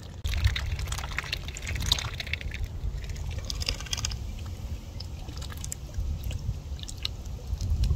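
Mallard ducks dabbling, their bills working the wet mud and shallow water at the shoreline: a run of small wet clicks and slurps, densest in the first four seconds and sparser after, over a low rumble of wind on the microphone.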